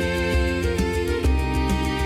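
Medieval-style folk tune with bowed fiddle over a steady beat.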